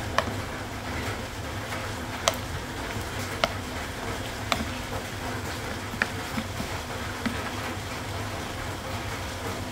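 Metal spoon clinking against the side of a bowl while stirring chicken pieces in a wet marinade, a sharp click every second or so. A steady low hum runs underneath.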